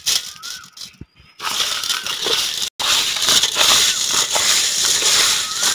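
Shelled field snail meat being rubbed and squeezed by hand with salt in an aluminium bowl: a wet, crunching scrunch that starts about a second and a half in, with a brief break near the middle. This is the salt scrub that cleans the snails before washing.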